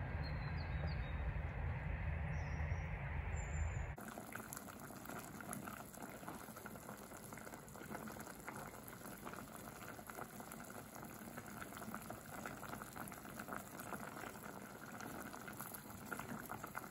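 A low wind rumble on the microphone with a few faint bird chirps, cut off suddenly about four seconds in. Then a saucepan of vegetable soup simmering on the stove: a steady, fine bubbling and crackling that is quieter than the rumble.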